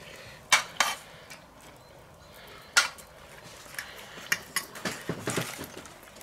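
Metal fork and poultry shears clinking against a stainless steel roasting pan as a whole roast chicken is worked and cut up. Sharp single clinks come about half a second in and again near three seconds, then a quicker run of clinks and scrapes about four to five seconds in.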